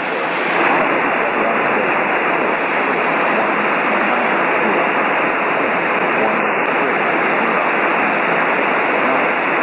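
Aircraft VHF radio static through the headset audio: a steady hiss with the squelch open that comes on suddenly. Buckeye's weather frequency, still a little too far away to receive, is not getting through.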